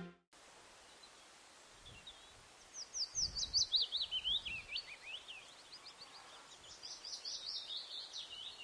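A small songbird singing two fast runs of sharp, high chirps. The first run is louder and falls in pitch; the second is fainter. Faint outdoor hiss lies underneath.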